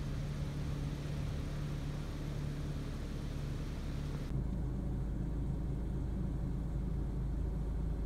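Steady low rumble of a running engine with a hum in it. About four seconds in, it turns deeper and more muffled.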